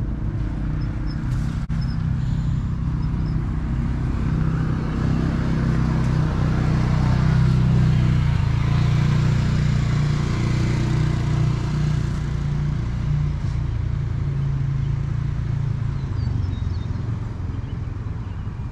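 A motor vehicle's engine running steadily with a low hum, growing louder toward the middle and then easing off somewhat.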